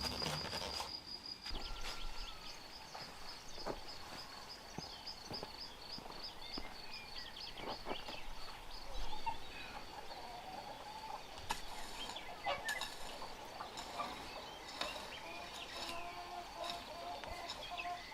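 Outdoor countryside sound: a cricket trilling in a fast, even pulse that fades out about halfway through, with birds chirping and calling throughout.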